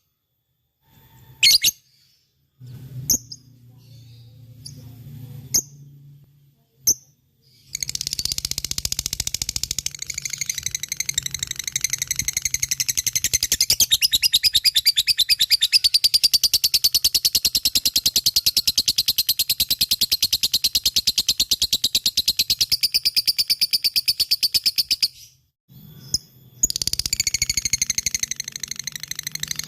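Lovebird giving its long, rapid chattering 'ngekek' song: a few separate sharp chirps, then about seventeen seconds of very fast continuous trilling. It breaks off briefly and starts up again near the end.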